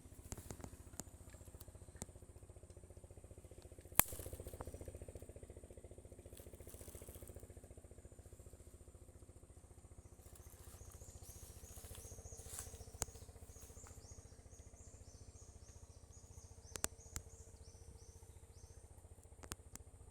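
Faint outdoor ambience: a steady low rumble, a few sharp clicks, and a run of short, high, repeated chirps in the second half.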